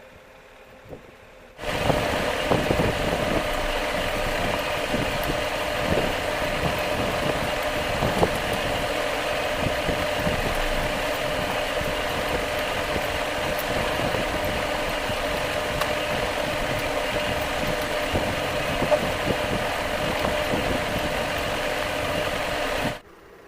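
A motor running steadily with a constant hum. It starts abruptly about a second and a half in and cuts off suddenly just before the end.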